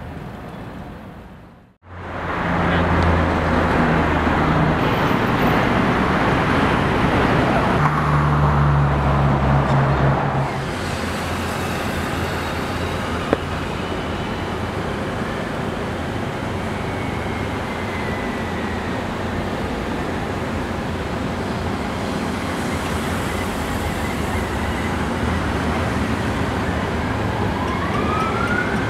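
Road traffic: vehicles passing with steady tyre and engine noise, with a heavier low engine drone for the first several seconds. Near the end a siren starts to wail, rising and then falling.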